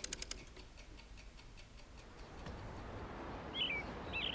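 Watch ticking in a quick, dense run for a moment at the start, then a faint stretch. From about halfway a low outdoor background noise comes up, and a small bird chirps twice near the end.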